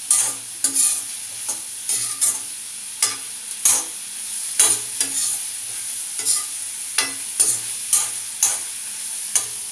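Mushrooms and capsicum sizzling in butter in a pan over a high flame. A utensil stirs and scrapes them against the pan in irregular strokes, one or two a second.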